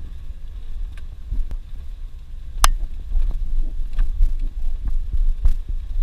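Suzuki Jimny driving slowly on a dirt road, heard from inside the cabin: an uneven low rumble and thumping from the body and suspension over the rough track. A few sharp clicks or knocks land here and there, the loudest about two and a half seconds in.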